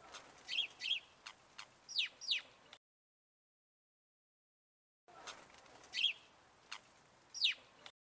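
Small songbird calling: quick short chirps and high notes that slide sharply down in pitch, in two short bursts with a dead-silent gap of about two seconds between them.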